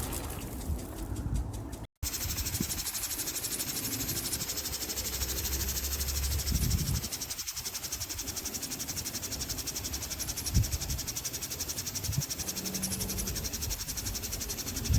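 Impact sprinkler running, its water jet hissing and chopped into a fast, even chatter by the swinging impact arm, with a few soft low thumps. The sound cuts out briefly about two seconds in.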